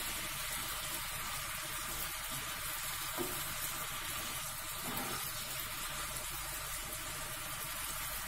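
Adobo sauce of soy sauce and vinegar bubbling around chicken pieces in a frying pan: a steady hiss as the sauce cooks down. A plastic spatula stirs through the chicken.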